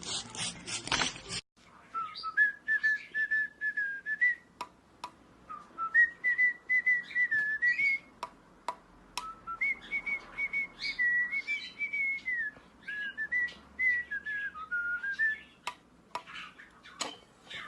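A loud hiss cuts off abruptly about a second in. It is followed by a whistled tune of held, stepping notes that waver up and down, with scattered sharp clicks.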